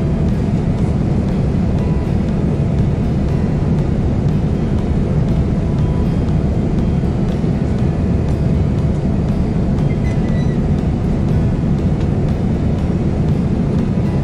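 Steady cabin noise of a Boeing 787-9 airliner in cruise: an even, low-pitched rush that does not change.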